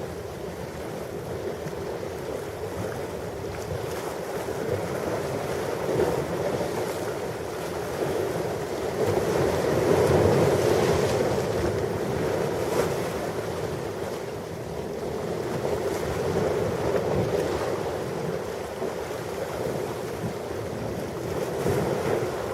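Ocean waves washing onto a shore, a continuous surf noise that slowly swells and ebbs, building to its loudest about halfway through.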